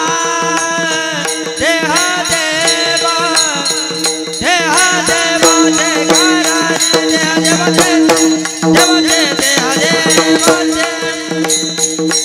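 Marathi devotional kirtan music: a woman singing a long, bending melody over a steady harmonium drone. Hand cymbals and a drum keep a steady beat.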